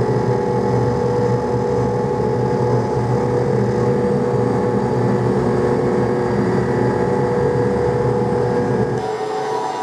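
McDonnell Douglas DC-10 jet engines running at high thrust during takeoff and climb: a steady heavy noise with several steady whining tones. Near the end the low rumble drops off and the tones change pitch.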